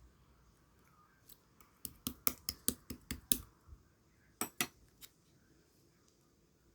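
Clear slime being squeezed and played with, making a quick run of sharp clicking pops, about a dozen in two seconds, then three more a moment later.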